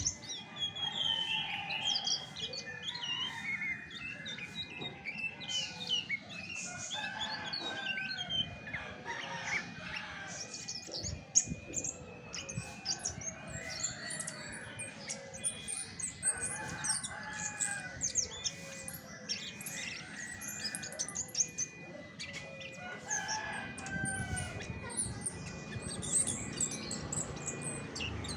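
Chestnut-backed thrush (anis macan) singing a long, varied run of quick chirps and short gliding, warbling phrases.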